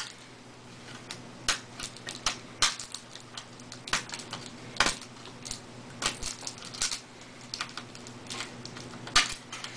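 Irregular small clicks and taps of plastic wire connectors and fingers against the sheet-metal chassis of a Dell 2005FPW LCD monitor as the connectors are worked out of its circuit board, over a faint steady low hum.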